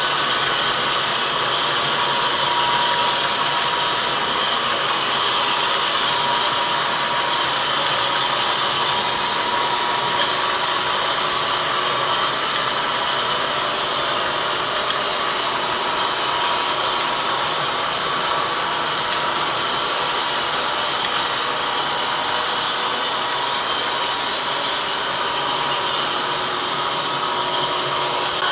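HO scale model freight cars rolling steadily along the track: a continuous rushing noise of small metal wheels on rail, with a faint high steady hum.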